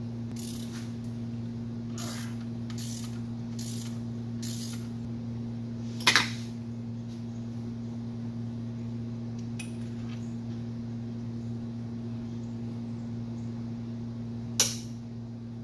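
Hand tools being handled at the engine bay: a few soft rustles, then two sharp clinks, one about six seconds in and one near the end, over a steady low hum.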